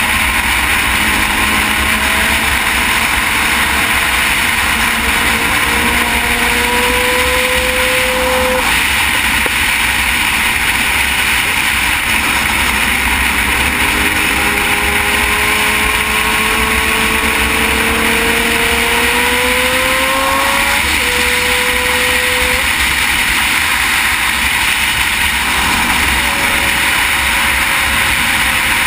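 Heavy wind rush over a motorcycle-mounted camera at road speed, with a 2008 Honda CBR600RR's inline-four engine note underneath. The engine note rises in pitch several times under acceleration and drops back in between.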